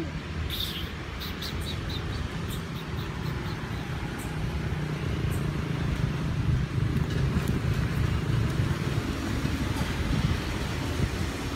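Steady low rumble of outdoor background noise, with a short run of faint high chirps or clicks about a second in.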